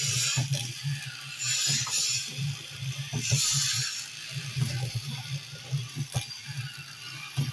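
The motor and plastic gearbox of a Zoids Iron Kong toy running as the model walks: a steady pulsing hum with light gear clicks. A rasping hiss comes in three times, near the start, about a second and a half in, and a little after three seconds.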